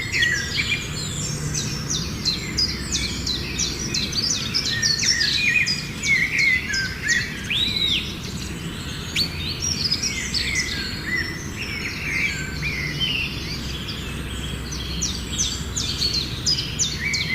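Several small birds chirping and calling continuously, a dense run of quick, high chirps and short sweeping notes. Under them is a steady low background rumble.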